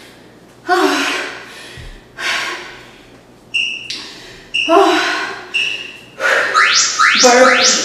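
A woman breathing hard between high-intensity exercises: loud gasping breaths and exhales about once a second, a few with a faint whistle, and a quick run of breaths near the end.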